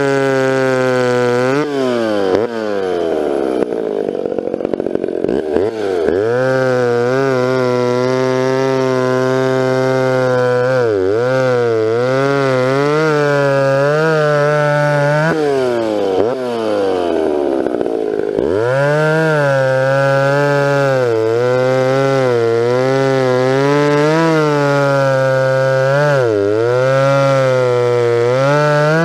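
Vintage McCulloch 10-10-series two-stroke chainsaw with a 20-inch bar and full-comp chain, cutting through a log at full throttle. The pitch dips each time the chain bogs in the wood. Twice the revs sag far down and then climb back up, a few seconds in and again past the middle.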